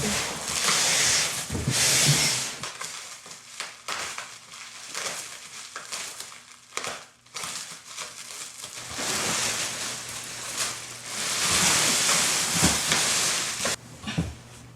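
Plastic wrapping of a vacuum-compressed mattress rustling and crinkling as it is cut open and pulled off, in two long loud stretches with scattered crackles between.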